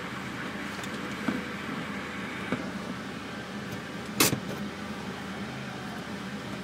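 Car engine idling steadily, heard from inside the cabin, with a couple of small clicks and one sharp click about four seconds in.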